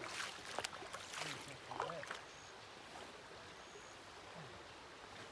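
Shallow creek running over a stony riffle: a steady, even rush of water. A few short sharp sounds and a faint voice come in the first two seconds.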